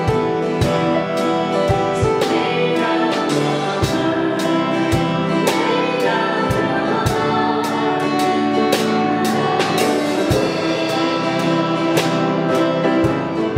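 Church band playing: piano and acoustic guitar with a drum kit keeping a steady beat of drum and cymbal strokes, and a voice singing.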